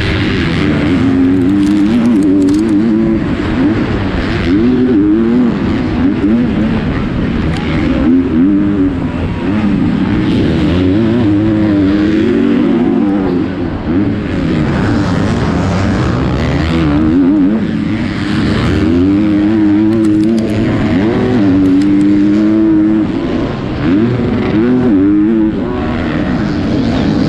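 A 250-class four-stroke motocross bike's engine at racing speed, revving up and dropping back over and over as the rider works the throttle and gears, with two brief dips in level about fourteen and twenty-four seconds in.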